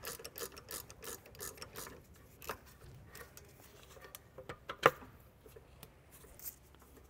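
Ratchet wrench with a 7 mm hex bit clicking quickly as it backs out a brake caliper guide pin bolt. Then comes quieter scraping of the bolt being turned out by hand, with a few scattered metallic clicks; the sharpest click, about five seconds in, is the loudest sound.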